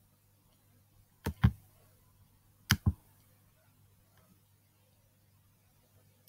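Two clicks of an Acer Chromebook 11's touchpad, each a sharp click-clack pair, about a second and a half apart. A faint steady low hum runs underneath.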